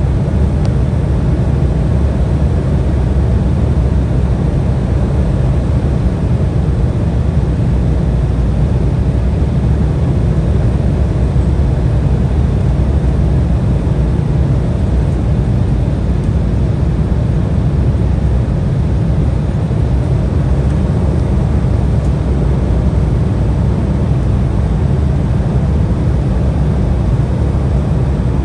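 Steady cabin noise inside an Embraer 175 regional jet: a constant low drone of engines and airflow with an even hiss above it.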